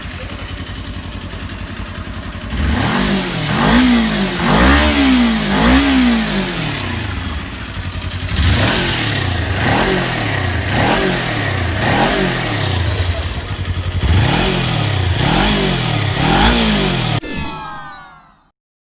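Stock-exhaust 250cc sport motorcycle engine idling, then blipped in short runs of quick revs that rise and fall. About a second before the end it shuts off and winds down to silence.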